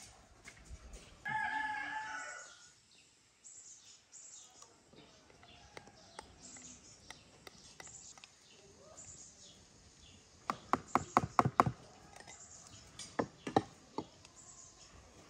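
A rooster crows once, about a second in, a single held call that then falls away. Near the end comes a quick run of sharp knocks, about six a second, followed by a few more single knocks.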